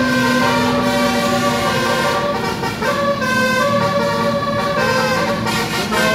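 A tour bus's basuri musical air horn playing a melody: held horn notes stepping from pitch to pitch every half second or so, over a steady low tone, with traffic underneath.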